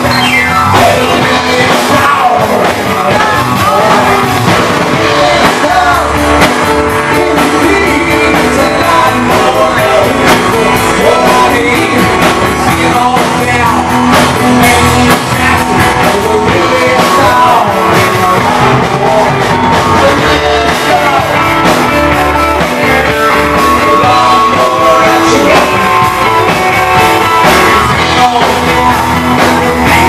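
Live rock band playing loud and without a break: electric guitar, drum kit and keyboards.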